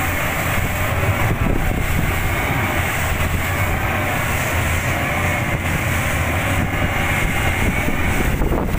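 Twin Mercury outboard engines on a rigid-inflatable rescue boat running steadily at speed, a constant low drone mixed with the rush of wind and water as the hull crosses choppy sea.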